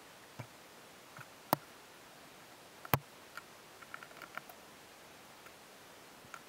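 Small hard plastic parts clicking and tapping as they are handled and set down on a countertop: two sharp clicks, about a second and a half and three seconds in, with a few lighter ticks around them, over faint room tone.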